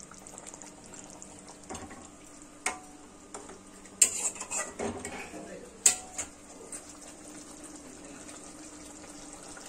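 A metal spatula knocking and clinking against a steel kadai a few times, sharp separate knocks spread through the middle, against a quiet background.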